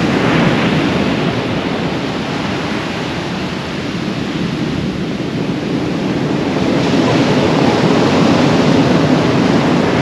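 Heavy surf: big swells breaking and rushing up the beach in a gale, with wind buffeting the microphone. The roar eases a few seconds in and builds again as the next waves break.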